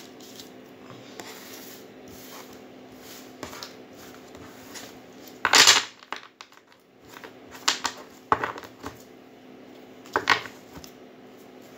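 A deck of tarot cards being handled: cards swept together off a table, the deck knocked square on the tabletop with one loud knock about five and a half seconds in, then shuffled by hand with short rustles and clicks.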